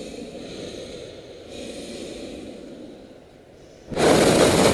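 A hot air balloon's propane burner firing: a sudden, loud, steady roar starting about four seconds in, after a quieter low rushing noise.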